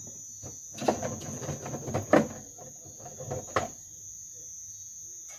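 Crickets chirping steadily in one high, unbroken tone. About a second in, a run of sharp clicks and knocks starts and lasts a few seconds, the loudest near the middle.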